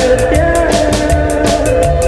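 Music: a Khmer song recording with a steady drum beat under a sliding melody line.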